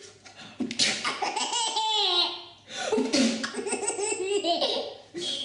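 A baby laughing hard in two long bouts, the second starting about three seconds in.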